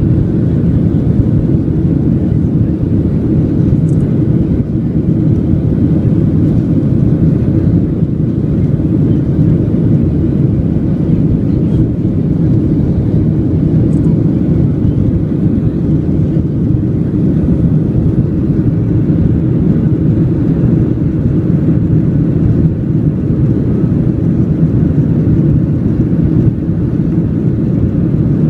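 Airliner during takeoff: a steady, loud, low rumble of jet engines and rushing air, holding even without rising or falling.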